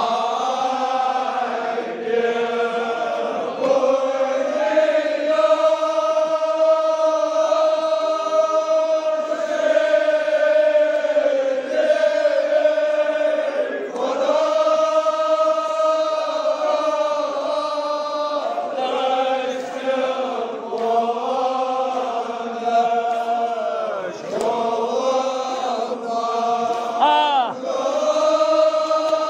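Men chanting a Kashmiri marsiya, a sung elegy, in long drawn-out notes. The phrases run for several seconds each, with brief breaks between them.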